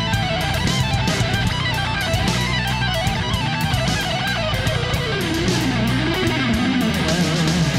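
Background music: an instrumental track whose melody bends and wavers in pitch over a steady low accompaniment.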